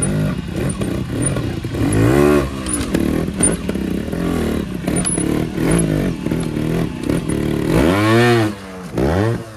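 Trials motorcycle engine blipped hard and repeatedly as the bike climbs rock steps, its pitch rising and falling sharply with each burst of throttle; the biggest revs come about two seconds in and near the end.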